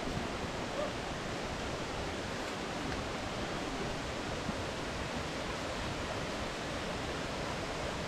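Steady rushing of flowing water from a forest stream.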